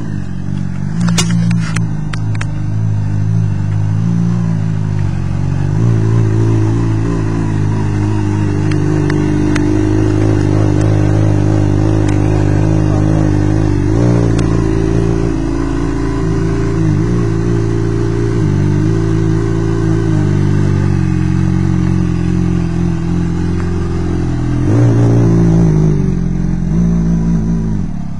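A Honda CBR600RR's 599 cc inline-four sport-bike engine idling through a Yoshimura slip-on exhaust, with a few light clicks about a second in. The engine briefly revs up near the end.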